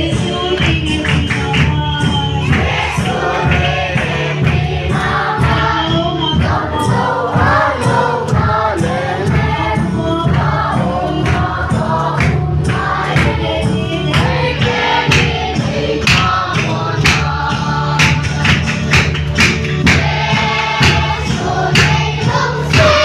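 A crowd singing a gospel song together over instrumental accompaniment with a steady percussion beat.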